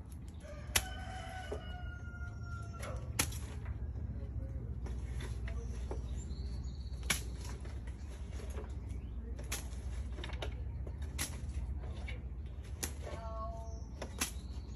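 A rooster crows once about a second in, with a shorter rooster call near the end. Scattered sharp knocks and clatters run through it as gloved hands scoop debris out of a roof gutter.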